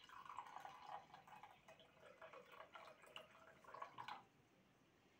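Water poured from a stainless steel jug into a drinking glass, a faint trickling fill that stops about four seconds in.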